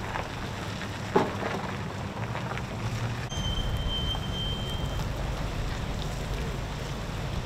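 Tyres of an SUV and its tandem-axle boat trailer rolling slowly over gravel: a steady crunching hiss, with a single sharp knock about a second in.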